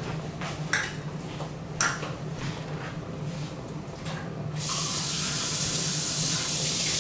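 A few light clicks and knocks of kitchenware, then about four and a half seconds in a kitchen tap is turned on and water runs steadily into the sink.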